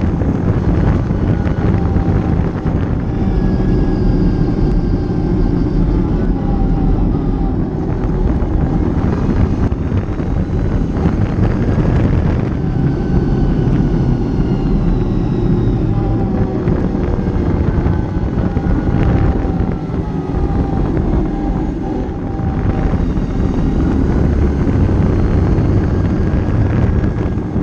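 ATV (quad) engine running while riding, its note drifting slowly up and down with the throttle, over a heavy low rumble.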